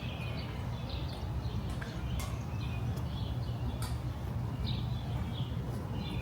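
Street ambience: a steady low rumble of the city with scattered short bird chirps and a few sharp clicks.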